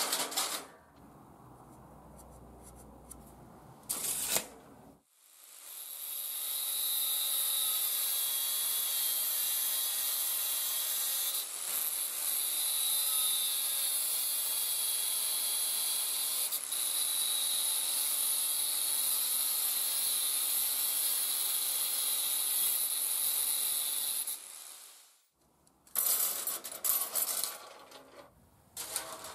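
Angle grinder with a thin cut-off disc cutting sheet steel: a steady high whine that comes in about five seconds in and runs for nearly twenty seconds before dying away. A couple of sharp metal knocks come before it, and near the end thin steel strips clatter on a steel table.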